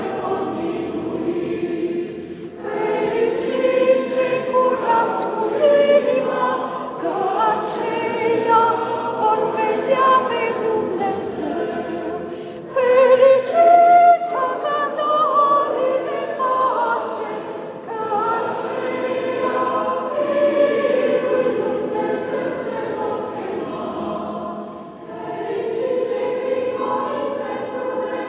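Orthodox church choir singing a liturgical chant in long sustained phrases, with short breaks between them and a louder passage about halfway through.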